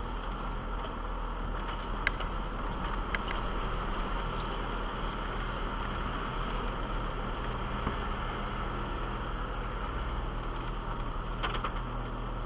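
Jeep Wrangler Unlimited driving along a rough dirt trail: a steady engine and drivetrain drone with road noise, and a few short sharp clicks or knocks about two and three seconds in and again near the end.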